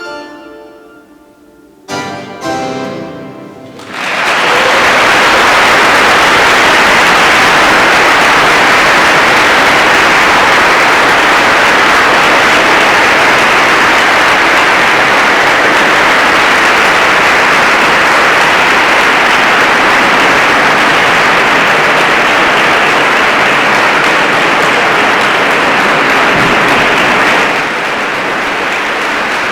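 The last few notes of a keyboard piece, then a long, loud round of audience applause that starts about four seconds in and eases off near the end.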